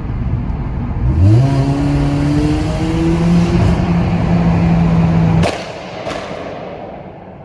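Honda Civic EP2's engine pulling under acceleration, with road noise: the engine note rises about a second in, holds steady, then cuts off suddenly about two-thirds through, leaving fading road noise.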